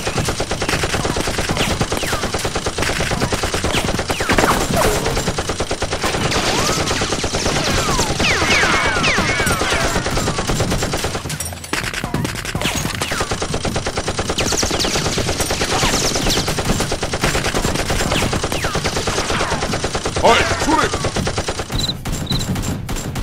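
Continuous rapid automatic gunfire, a dense rattle of shots that breaks off briefly about eleven and a half seconds in, with sliding whistles over it around eight to ten seconds in.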